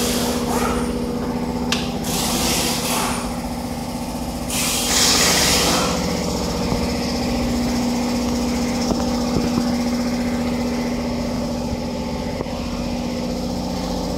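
A steady engine or motor hum holds one even pitch throughout. Over it come two spells of hissing, one about two seconds in and a louder one about five seconds in.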